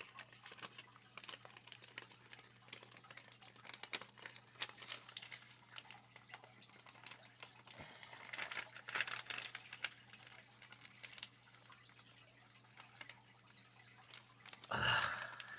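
Faint, irregular clicking and crinkling of a plastic clamshell lure package being handled, over a faint steady hum.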